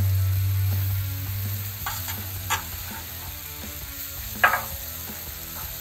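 Cauliflower sizzling in oil and butter on a hot flattop griddle while a metal spatula scrapes under the pieces and flips them. There are a few sharp scrapes or clinks of the spatula on the steel, the loudest about four and a half seconds in. A low rumble fades out over the first second and a half.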